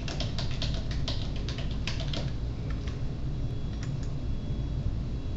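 Computer keyboard typing: a quick run of keystrokes for about two seconds, then thinning to a few scattered clicks.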